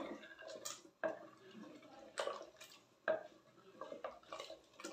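Wooden spoon stirring and scraping a thick, wet masala in a clay cooking pot, a short scrape or knock about once a second. This is the masala being fried (bhuna) until the oil separates.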